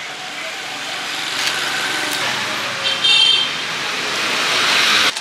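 Road traffic passing close by, a vehicle growing louder toward the end, with a short high horn toot about three seconds in.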